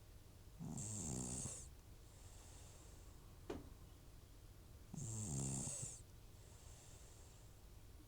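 An old cat snoring in its sleep: two loud buzzing snores about four seconds apart, with softer airy breaths between them. The snoring comes from the cat's chronic nasal congestion, with runny nose and sneezing, which returns whenever its medication is stopped.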